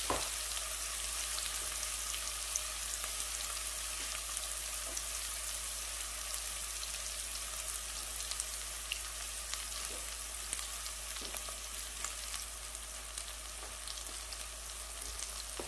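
Sliced red onions frying in oil in a pan over low heat: a steady, gentle sizzle with scattered small pops and crackles.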